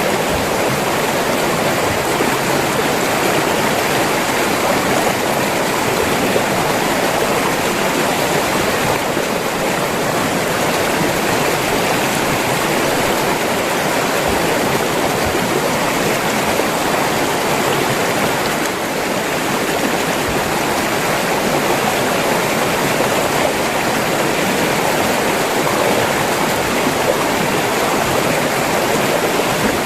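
River water flowing and splashing over rocks: a steady, dense rushing with no breaks.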